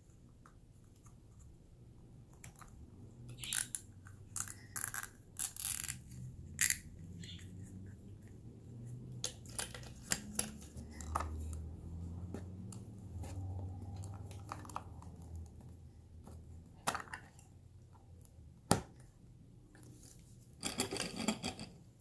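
Hands handling a fishing-line spooling stand and its spool of braided line: scattered small clicks, taps and rattles of plastic and metal parts, with one sharp click a little before the end.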